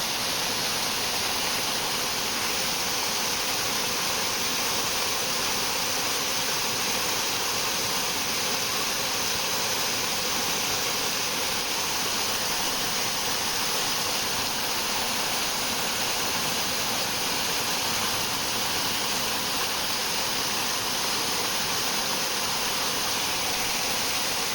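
Waterfall: water falling steadily onto rock and a pool, an even rushing hiss with no change.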